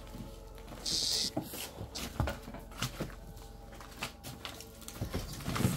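Footsteps and rustling among rubbish on the floor, with scattered knocks and a brief hiss about a second in. Toward the end an old wooden door is handled at its latch.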